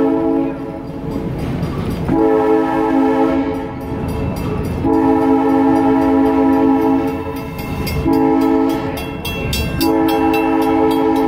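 A locomotive sounds its multi-tone warning signal in a series of blasts, the last four long, long, short, long. This is the standard signal for approaching a road grade crossing.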